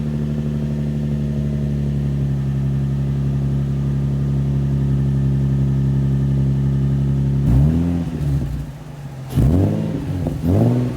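Nissan 350Z's 3.5-litre V6 (VQ35DE) running through newly fitted Berk test pipes, which replace the catalytic converters. It idles steadily just after starting, then is revved three times in quick blips in the last few seconds.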